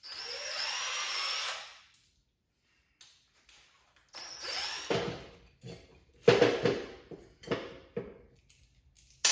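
Cordless drill/driver running on a riding-mower deck's blade spindle, driving its bolts: a steady motor whine for just under two seconds, a second shorter run about four seconds in, then several short knocks and clatters of metal.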